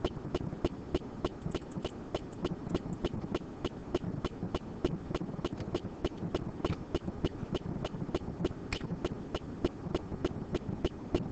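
Computer keyboard keys and mouse buttons clicking in quick, uneven succession, about four or five clicks a second, over a low background hum.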